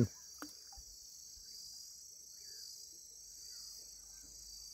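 Steady night chorus of crickets, with faint whistled calls of a common pauraque (curiango) rising and falling, one about halfway through.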